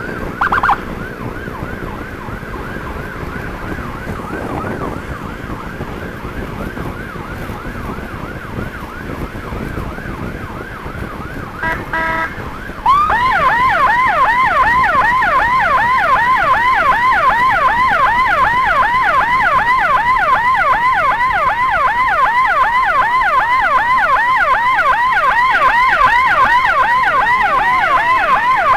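Emergency-vehicle siren yelping in quick rising-and-falling sweeps, about four a second, over road and engine noise. About halfway through it jumps to a much louder, faster yelp sweeping over a wider pitch range, and holds there.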